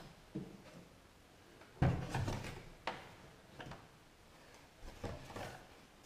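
Someone climbing past a wooden door in a small room: a heavy thump about two seconds in, then a string of knocks and scuffs as shoes bump against the door and its frame.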